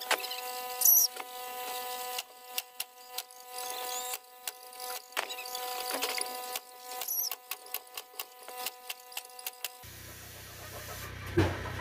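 Pneumatic staple gun firing staples through wire mesh into wooden framing: a string of sharp snaps at an uneven pace. A steady hum sits underneath and stops near the end.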